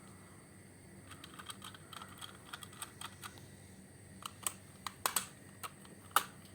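Irregular small clicks and taps, a few a second, the sharpest about five and six seconds in, over a faint steady hum.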